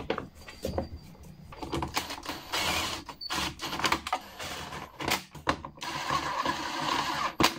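Cordless driver running in two bursts, the second lasting about a second and a half, driving screws into a lawnmower's plastic engine cover. Knocks and clicks come from the cover being handled and seated.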